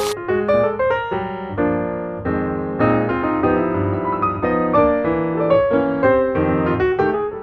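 Background music: a piano melody with chords.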